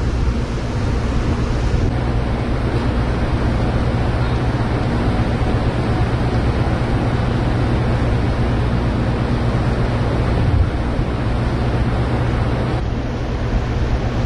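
Wind buffeting the microphone on a ferry's open deck, over a steady low rumble from the ship's engines and the churn of its wake.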